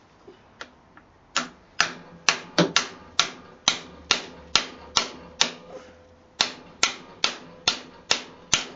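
A run of sharp metallic clicks, two to three a second with a short pause midway, as a hand tool works the rear axle nut of a Suzuki Hayabusa loose.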